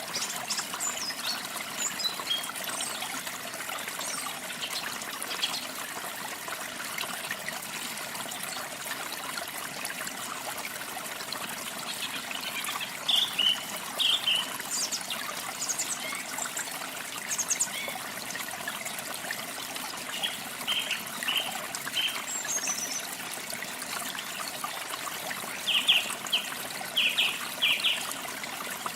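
Water trickling steadily, with small birds chirping now and then: short high chirps, bunched in quick runs about halfway through and again near the end.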